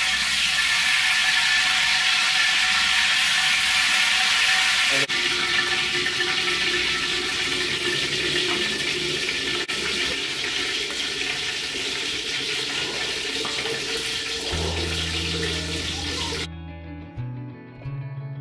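Hot ghee sizzling and spattering hard in an aluminium pot after water is sprinkled in to test that it is hot enough. A loud hiss slowly dies down and cuts off about sixteen seconds in.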